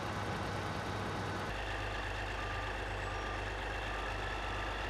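Steady drone of heavy diesel machinery running, its low end shifting about a second and a half in. A few faint short beeps sound in the middle.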